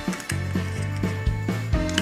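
Upbeat background music with a steady beat and a bass line.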